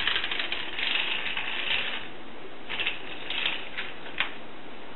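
Metal stand and stage of a Bath interferometer being pushed back by hand: rattling, scraping clicks in bursts for about two seconds, then a few shorter rattles and single clicks, the sharpest near the end.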